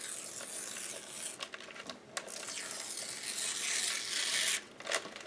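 Paper being worked by hand: a scratchy rasp of paper, first briefly and then in a longer stretch that builds and stops sharply near the end.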